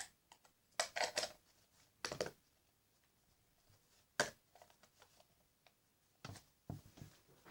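Clear slime being handled, giving irregular short clicks and squelches at a few loud moments spread through the stretch.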